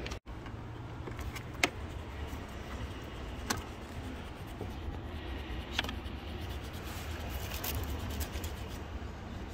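Rustling and handling noise from hands working among hoses and wiring in a car's engine bay, with about four sharp clicks spread through it, over a steady low rumble.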